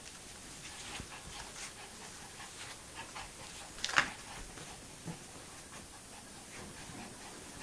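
Small terrier dog panting and sniffing in short, irregular puffs, with one sharp, louder noise about four seconds in.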